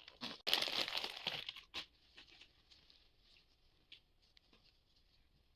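Packaging being torn open: a loud rip lasting about a second, a short second rip just after, then soft crinkling and rustling as the wrapping is handled.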